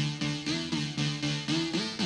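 A live band's song intro: a repeating synthesizer figure, about four notes a second, with notes that glide in pitch.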